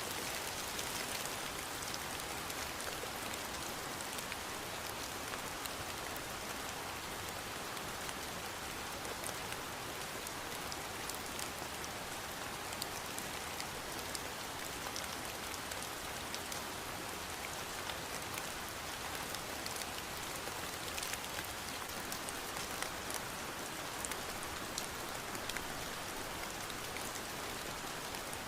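Steady rain falling, drops pattering on a surface with many fine ticks over an even hiss.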